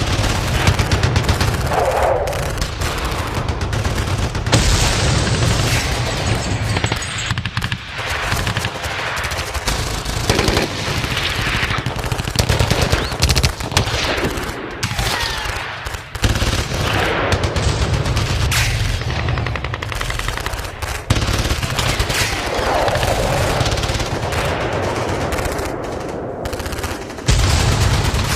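Battle sound effect: continuous rapid machine-gun and rifle fire, bursts overlapping with hardly a pause, with brief lulls around the middle and near the end.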